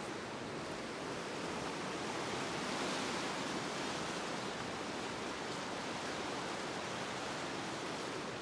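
Steady rush of falling water, a little louder about three seconds in.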